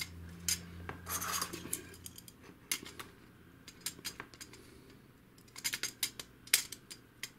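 Plastic paper-feed guides of an HP DeskJet 2130 being slid along and snapped onto the printer's sheet-metal frame: scattered clicks and taps with brief scraping, and a quick run of sharper clicks about six seconds in.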